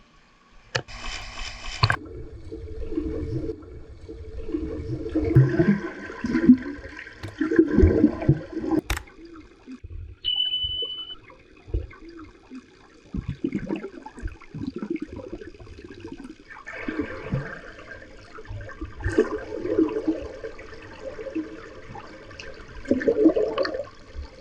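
Swimming-pool water sloshing and splashing close to the microphone in irregular surges, with a sharp splash about a second in.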